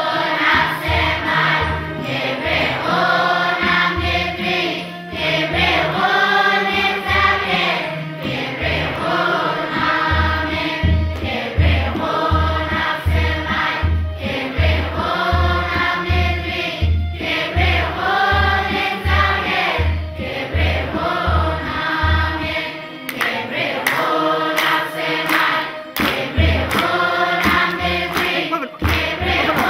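Children's choir singing a Tigrinya Orthodox hymn (mezmur) together in long held phrases, over a low drum beating about twice a second. The drum stops for a few seconds near the end and comes back, with hand claps in the last few seconds.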